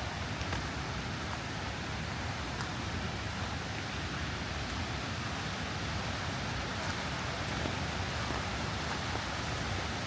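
Steady rain in a forest blended with the constant rush of running water, with a few faint drip ticks.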